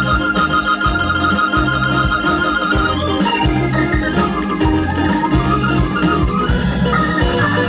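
A jazz band led by a Hammond organ, over drums and a repeating bass figure. The organ holds a chord for about three seconds, then plays shorter, moving phrases.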